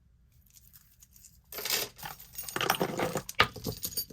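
Costume jewelry being handled: small metal pieces clinking and rustling, with a few sharp clicks, the loudest shortly before the end. It starts about a second and a half in.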